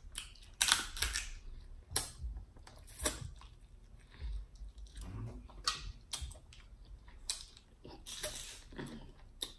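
Close-up eating of snow crab legs: sharp snaps and clicks of the shell being broken and picked apart by hand, at irregular intervals, with chewing and wet mouth sounds between them.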